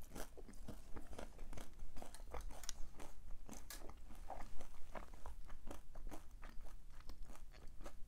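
A tortilla-chip nacho being bitten and chewed: a run of crisp, irregular crunches.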